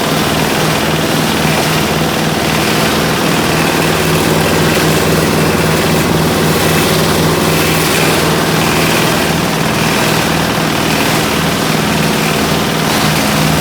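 Small engine of a grass shredder and crusher machine running steadily.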